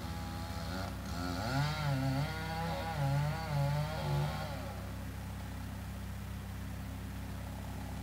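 A wood chipper's engine runs steadily throughout. From about a second in until about four and a half seconds in, a chainsaw runs over it, its pitch wavering up and down as it works at the base of the tree trunk.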